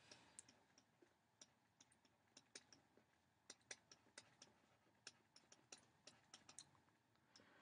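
Near silence with faint, irregular taps and clicks of a stylus writing on a tablet screen.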